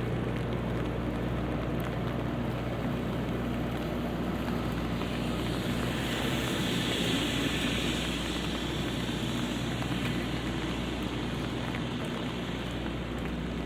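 Light rain falling on an umbrella and the wet street, over a steady low hum of city traffic. About halfway through, a vehicle passes on the wet road, its tyre hiss swelling and fading.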